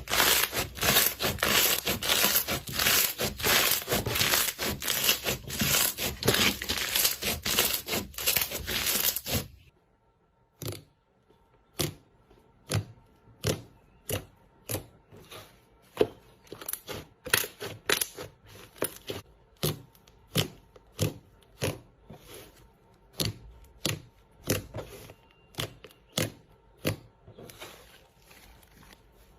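Slime being pressed and worked by hand, giving dense crackling and popping. About ten seconds in it thins out suddenly to separate pops, one or two a second.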